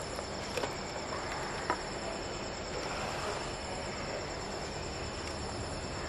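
Plastic drink bottles being shuffled around on a wooden table, with a couple of light taps as they are set down, about half a second and a second and a half in, over a steady hiss with a constant high-pitched whine.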